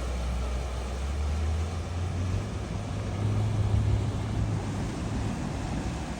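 A 4WD's engine running at low revs, its pitch rising a little about two seconds in and easing back again near the end.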